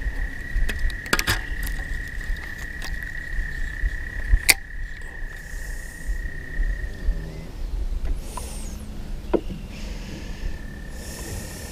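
A high, steady animal trill that holds one pitch for about seven seconds, breaks off, and starts again near the end. A few sharp clicks and a low rumble sound underneath.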